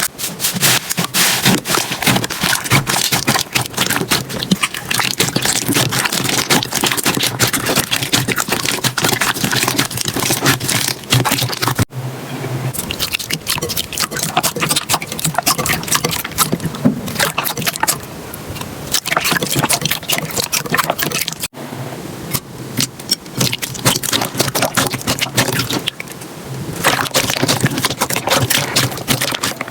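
Slime being handled and squeezed, making dense crackling and popping clicks, with two abrupt changes about 12 seconds and 21 seconds in as one slime gives way to another.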